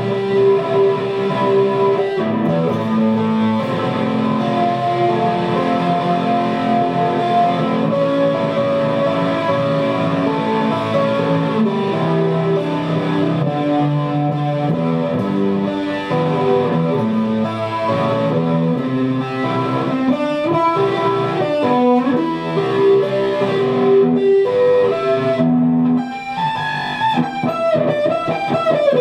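Music led by electric guitar, held notes changing every second or so, with a sliding note near the end.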